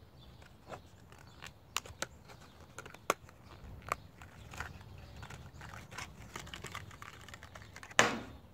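Plastic blister packaging of a fishing lure being handled and opened: irregular clicks and crinkles of stiff plastic, with one louder crackle near the end.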